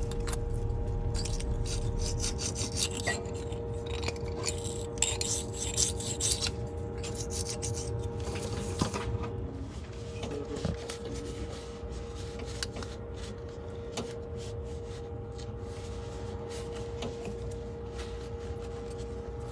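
Small blade scraping old gasket residue off a heavy-truck engine block's oil-separator mounting face, in quick repeated strokes that are heavier in the first half and lighter later. A faint steady hum runs underneath.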